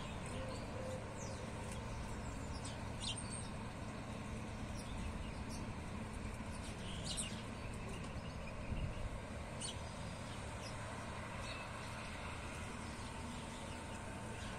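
GE U10B diesel locomotive hauling a passenger train away into the distance, a faint, steady low rumble, with birds chirping now and then.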